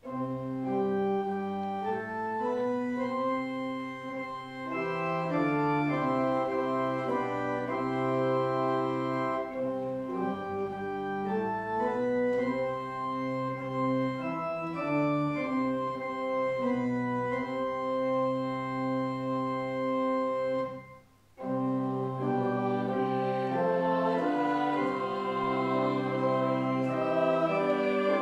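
Church organ playing slow, sustained chords that change step by step. It breaks off briefly about two-thirds of the way through, then carries on.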